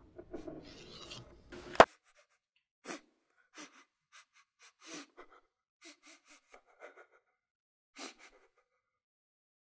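A person's short, ragged breaths and gasps, about a dozen spread irregularly, coming after a sharp click about two seconds in that cuts off a breathy hiss.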